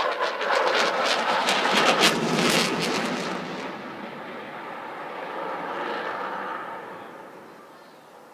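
RAF Eurofighter Typhoon's twin EJ200 turbofan jet engines roaring past with a harsh crackle. It is loudest in the first three seconds or so, eases off, swells briefly again about six seconds in, then fades away.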